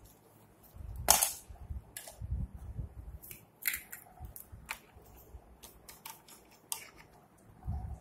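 Scattered sharp clicks and taps, the loudest about a second in, with low rumbling handling noise in between.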